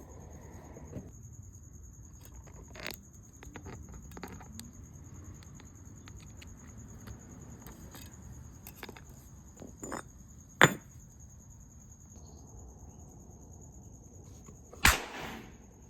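Two sharp bangs from a homemade firecracker hammer being struck, about four seconds apart in the second half; the second trails off for about half a second. Lighter taps and clicks come before them, over a steady high-pitched insect trill.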